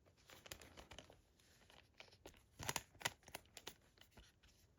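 Faint handling noise from a plastic Blu-ray case and its discs: scattered light clicks and crinkling, a little louder a few seconds in.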